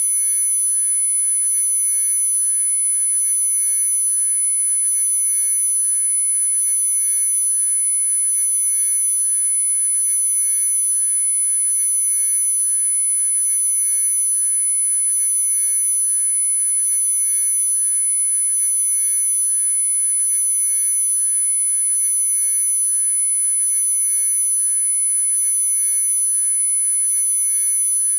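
Synthesized pure sine tones from a Rife-style frequency track, several sounding together and held dead steady: a strong very high-pitched tone on top, with fainter tones spread lower down.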